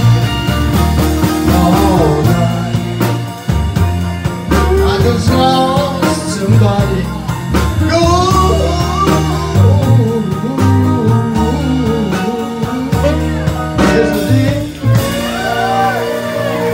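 Live band music: a man sings lead over strummed acoustic guitar, bass and the rest of the band.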